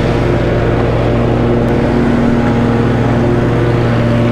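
Walk-behind lawn mower's engine running steadily under mowing load.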